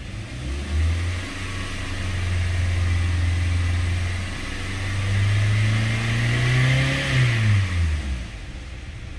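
2014 Hyundai Sonata's 2.4-litre four-cylinder engine revved in Park: it rises from idle about half a second in, is held at around 2,500–3,000 rpm with the pitch creeping slowly higher, then is released near the end and drops back toward idle.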